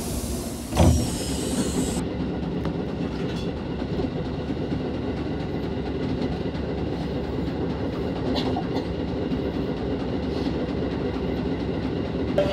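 Electric commuter train car running, heard from inside the carriage: a steady rumble of wheels on rail with occasional faint clacks, and one heavy thud about a second in.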